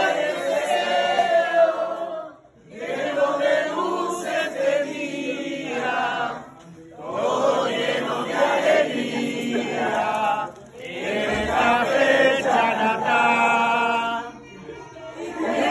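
A group of people singing a song together, in phrases of a few seconds with short pauses for breath between them.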